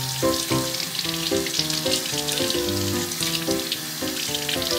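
Kitchen tap running onto a plastic bottle being rinsed, a steady hiss of water, under background music with a melody of short notes.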